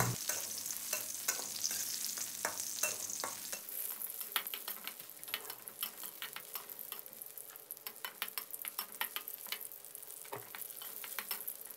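A metal spatula scraping and clicking against a metal wok while shallots, garlic and dried chillies fry in a little oil, with a light sizzle underneath. The sizzle is stronger in the first few seconds; the spatula strikes go on throughout.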